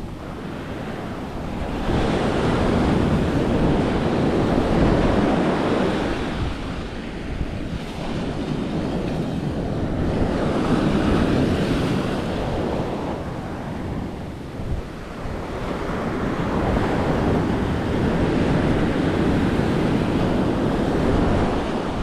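Atlantic surf breaking and washing up a sandy beach, the rush of foam swelling and fading in three long surges.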